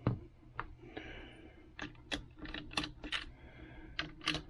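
Irregular light clicks and taps of a screwdriver and small metal parts being handled in the upturned rifle's action while its screws are worked out, about ten in all.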